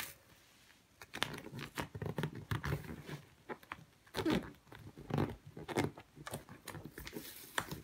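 Hands rubbing and pressing a self-adhesive leather repair patch onto a leather sofa armrest, with its paper backing rustling. The sound is a run of short, irregular rubs, scrapes and crinkles that starts about a second in.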